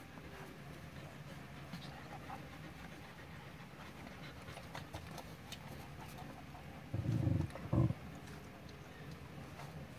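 Nursing mother dog panting, with faint clicking and smacking from puppies suckling. About seven seconds in come two short low rumbles, the loudest sounds.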